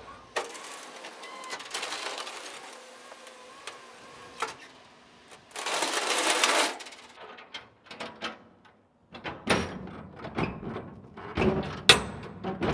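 Steel shipping container's door locking bars and handles being worked open: a run of sharp metal clicks, rattles and knocks in the second half. Before that there is a steady hiss, with a louder burst of hiss about six seconds in.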